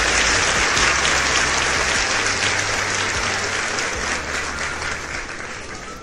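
A crowd applauding, with dense clapping that fades out gradually.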